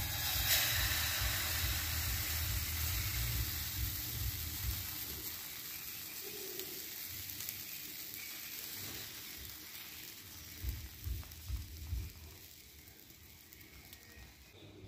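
Pancake batter sizzling in hot oil in a frying pan, loudest just after the batter goes in and slowly dying down. A few soft bumps come about two-thirds of the way through.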